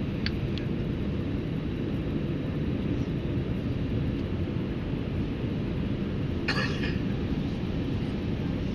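Steady low drone of an Airbus A320 heard from the passenger cabin in flight. A short cough sounds about six and a half seconds in.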